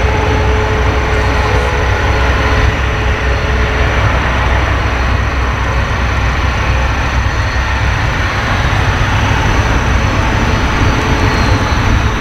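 Boeing 737-800's twin CFM56-7B turbofan engines running at low thrust as the jet taxis and turns on the runway: a steady jet whine over a deep, continuous rumble.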